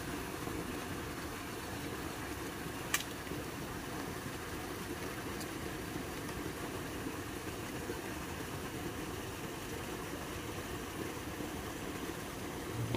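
Steady hiss of water spilling from culvert pipes into a pond, with a single sharp click about three seconds in.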